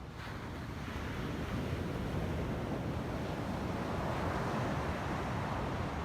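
Ocean surf washing in a steady wash of noise that swells about a second in.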